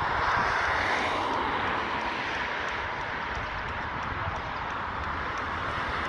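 Steady rushing noise of passing motor traffic, swelling in the first second or so and then holding.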